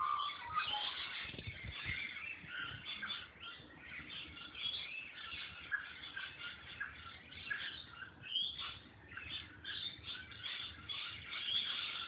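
A dense chorus of many birds chirping and whistling together, overlapping without pause.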